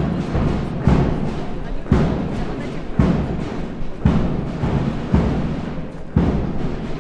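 Military marching drum beating a steady march tempo, about one heavy beat a second, to keep marching troops in step.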